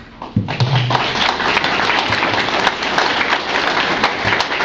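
Audience applauding, the clapping starting abruptly about half a second in.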